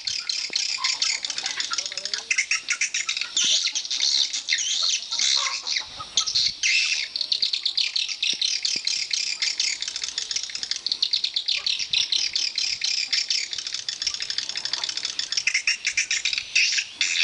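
Swiftlets calling: a dense, continuous chatter of rapid high chirps and clicks, many overlapping calls at once.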